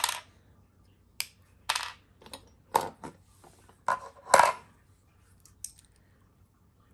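Small metal Beyblade parts clinking and clattering as they are picked through and set down: a series of sharp clinks, the loudest a little over four seconds in.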